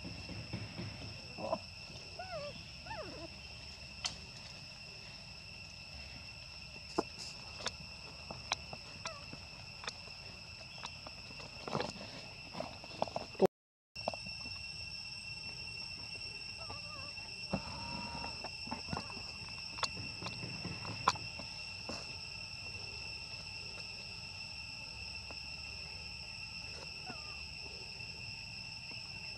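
Steady high-pitched drone of insects, with faint scattered rustles and clicks in dry leaves. A few short rising-and-falling squeaks from young macaques come in the first three seconds, and the sound cuts out for a moment about halfway.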